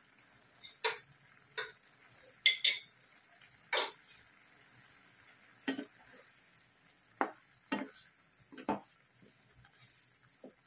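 Kitchen utensils knocking and clinking against a pan, about a dozen separate sharp knocks spread out with gaps between them. In the second half a wooden spatula is stirring shrimp in their sauce in the pan.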